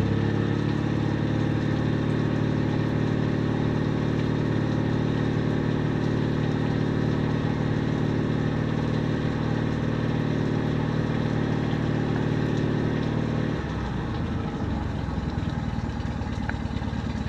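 2011 Mercury 9.9 two-cylinder four-stroke outboard revved up and held at a steady high speed, then dropping back to idle about thirteen seconds in.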